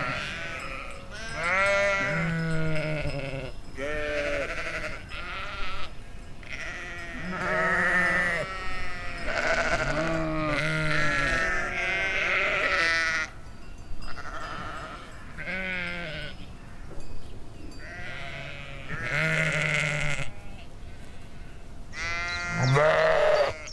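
Domestic sheep bleating over and over, several animals calling at different pitches, their wavering baas often overlapping, with short gaps between calls.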